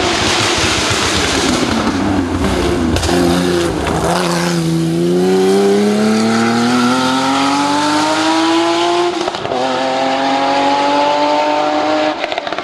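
Porsche 911 rally car's air-cooled flat-six engine, loud and close: it drops in pitch off the throttle into a hairpin a few seconds in, then accelerates hard away with the pitch climbing steadily. There is a quick upshift about nine seconds in, and the pitch climbs again after it.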